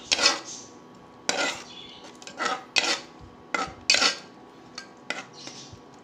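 Metal ladle scraping and clinking against the inside of an aluminium pressure cooker while stirring curd into a masala, in about eight short, irregularly spaced strokes.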